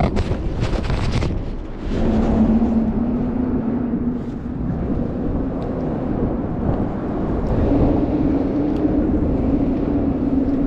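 Steady engine drone holding one pitch that rises slightly after about eight seconds, over wind noise. Rubbing and knocking against the microphone in the first second.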